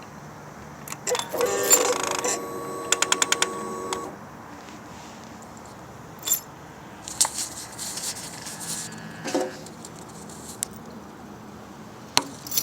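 Key-on sound of a 2011 Suzuki GSX-R 600: a short electric whirring with a quick run of about six sharp clicks from the throttle/exhaust-valve actuators, then scattered light metallic clicks and jingling. The clicking comes with an FI light and code C28, which the owner finally traced to a blocked exhaust servo after first blaming the secondary throttle valve actuator.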